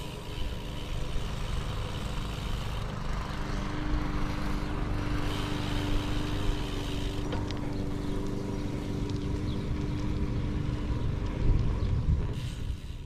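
Wind buffeting the microphone while riding a gravel bike, a continuous low rumble with a steady faint hum and a few light clicks.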